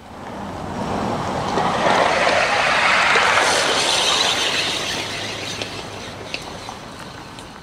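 Bare tender frame on two trucks coasting unpowered down a grade on 5-inch gauge track, its metal wheels rolling on the rails. The rolling noise grows as it approaches, is loudest about three seconds in as it passes close by, then fades as it rolls away.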